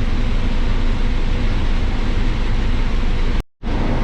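Combine harvester running steadily while harvesting corn: a continuous machine drone with a low engine hum. The sound cuts out completely for a fraction of a second near the end, then carries on unchanged.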